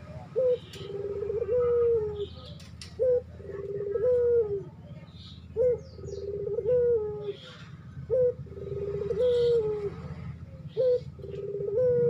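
Barbary dove cooing: five two-part calls, each a short coo followed by a longer drawn-out coo that falls slightly at its end, repeated about every two and a half seconds over a steady low hum. It is a bird in breeding condition calling for a female.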